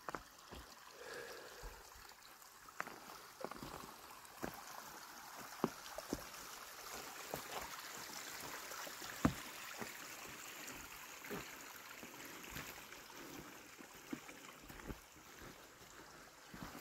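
A small forest stream running faintly, with irregular footsteps crunching through snow and twigs.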